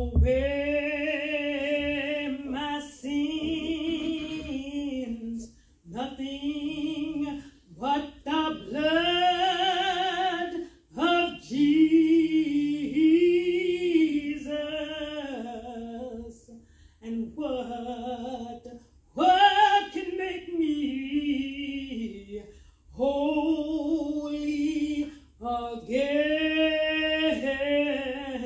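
A woman singing solo and unaccompanied into a handheld microphone: long held notes with vibrato, in phrases broken by short pauses for breath.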